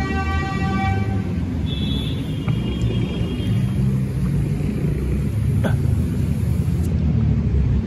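Steady low rumble of city street traffic, with a short pitched tone in the first second and a higher one about two seconds in.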